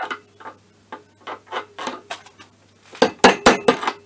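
Hammer tapping on the tube of a bearing-fitting tool, driving a crankshaft oil seal into a scooter engine's aluminium crankcase. A few scattered light taps come first, then a quicker run of about five harder blows around three seconds in.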